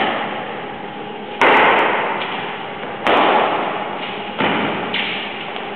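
Badminton rally: rackets hitting the shuttlecock, about five sharp hits mostly a second and a half apart, each trailing off in echo.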